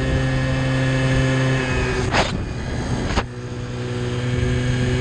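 Honda NQ50 Spree's 50cc two-stroke single running steadily flat out near its top speed. About halfway through, a rush of noise lasts about a second; after it the engine sound dips briefly and then slowly builds back up.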